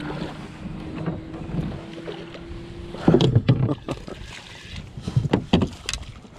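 Hooked peacock bass thrashing at the water's surface beside a kayak. Sharp splashes come in a burst about three seconds in and again near the end.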